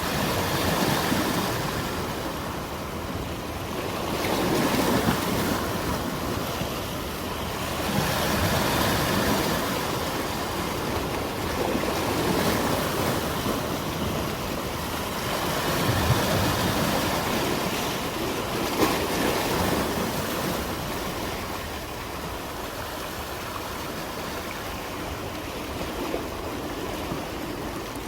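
Sea waves washing onto the shore: a steady rush of surf that swells and falls back every three to four seconds, growing calmer over the last few seconds.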